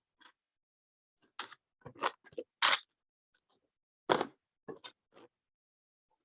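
Irregular short snaps and clicks of plastic robot-kit parts being cut from their frames with cutters, about a dozen in all. The loudest come a little under three seconds and about four seconds in.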